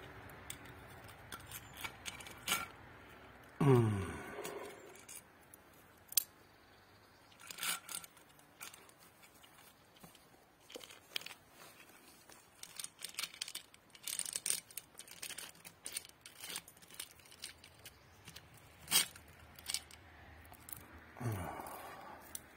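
Small metal clicks, scrapes and rattles as fingers and a hemostat work at the mouth of a rusted soldier's canteen and draw a beaded necklace out of it. Twice a short downward-gliding squeal, about four seconds in and again near the end.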